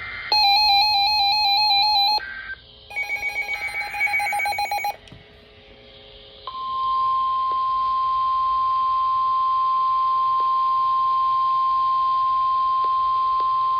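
Weather-radio alert signalling: about five seconds of loud, buzzy, warbling electronic data and alert tones in short bursts. After a short lull, from about six and a half seconds in, a single steady high tone near 1,000 Hz, the NOAA Weather Radio warning alarm tone that precedes a new warning.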